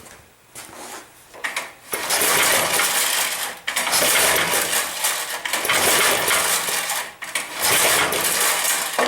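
Metal roller chain clinking and clattering as it is worked over the go-kart's sprockets, in three long runs with brief pauses between them.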